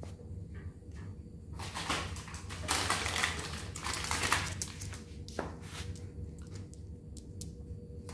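A Dandie Dinmont terrier's claws clicking and pattering on a ceramic tile floor as it trots up close, with a busy run of clicks and rustling that is loudest about three to four seconds in, then only scattered clicks.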